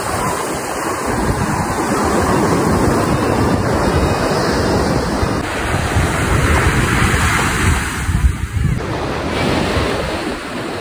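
Ocean surf washing up onto a sandy beach, a steady rushing noise, with wind buffeting the phone's microphone as a fluctuating low rumble.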